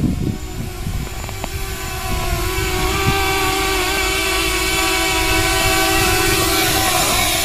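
7-inch FPV quadcopter's motors and propellers whining steadily as it flies just above the ground. The whine grows louder about two seconds in.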